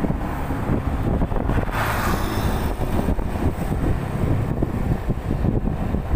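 Wind buffeting the microphone over the rumble of a moving motorcycle, heard from the bike itself, with a brief rushing hiss about two seconds in.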